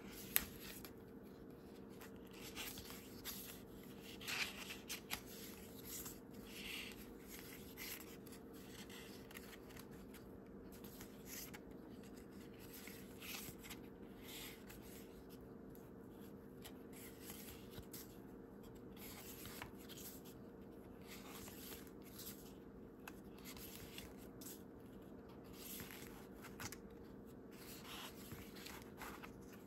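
Thick paper pages of a small handmade book being turned and handled, giving soft, scattered rustles and light taps, over a faint steady hum.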